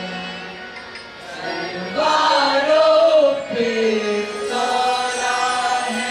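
A mixed choir of boys and girls singing slow, long-held notes, the pitch gliding gently between them, growing louder about two seconds in.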